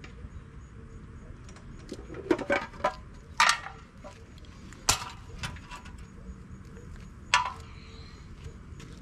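Metal engine parts and hand tools clinking and clanking during the teardown of a Ford 302 V8: a short rattle of clinks about two seconds in, a louder clank soon after, then single sharp clinks near the middle and toward the end.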